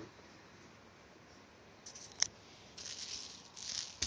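A pink open-lattice plastic rattle ball knocked about by an English bulldog puppy. There is a sharp click about halfway, then a few short rattling, scuffling bursts near the end.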